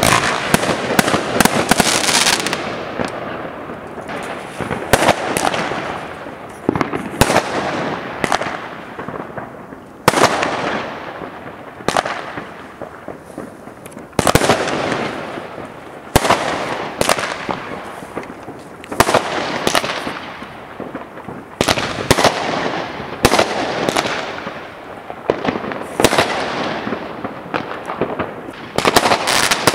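Aerial fireworks going off, a sharp bang every second or two, each with a tail that fades away before the next shell bursts.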